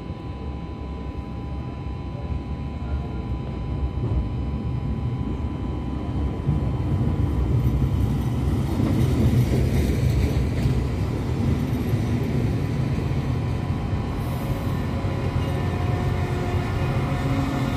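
Diesel multiple unit 711-003/004 arriving at a station platform and passing close by at low speed: a low rumble that grows louder as it comes alongside, peaking about halfway through, then running on steadily.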